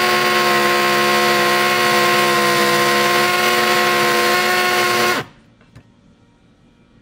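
Hammer drill with a glass bit running steadily in hammer mode, boring a hole through ceramic tile, with a steady motor whine; it stops suddenly about five seconds in.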